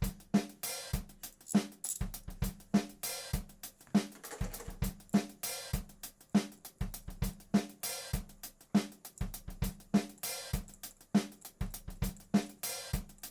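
Background music: a drum-kit beat with kick, snare and cymbals, keeping a steady rhythm.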